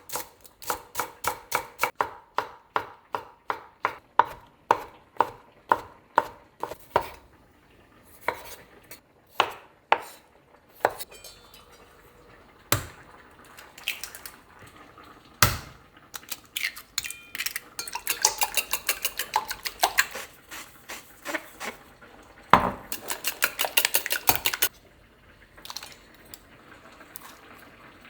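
Metal kitchen utensils clinking against dishes and cookware: a run of even, ringing taps about three a second, then scattered knocks and two spells of quick rattling later on.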